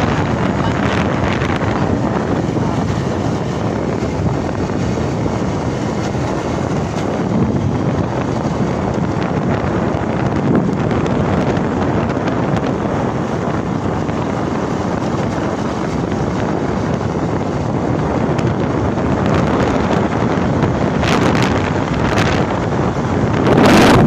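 Wind rushing over the microphone of a camera riding along a road, a steady noise with a louder gust a little before the end.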